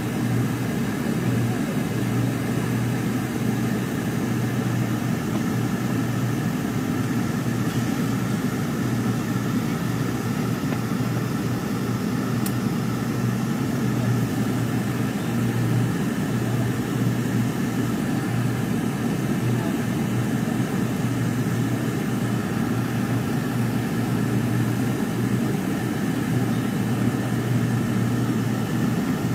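Steady airliner cabin noise during the descent on approach: engine drone and rushing airflow heard from a window seat, with a strong low hum, unchanging throughout.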